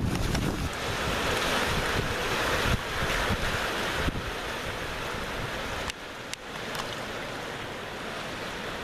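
Sea surf breaking and washing up a flooded concrete slipway, with wind buffeting the microphone. The wash is loudest in the first half and eases slightly about six seconds in.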